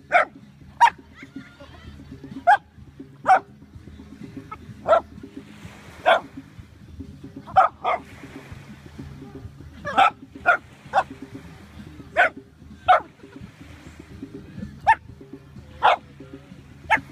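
A dog barking in short, sharp barks, roughly one a second with uneven gaps.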